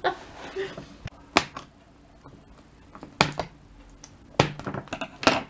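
A foil gift bag being handled and its tie string cut with scissors: a few sharp, spaced-out crinkles and snips, with quieter rustling between.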